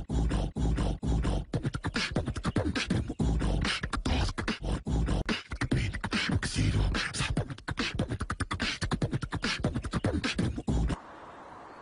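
Human beatboxing: a fast run of vocal kick drums, snares and clicks, which stops abruptly near the end.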